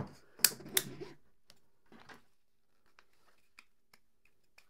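Plastic clicks and knocks from a 3D-printed adapter ring being pushed into the hub of a plastic filament spool and the spool being handled: two sharp clicks in the first second, then a soft rustle and a few faint ticks.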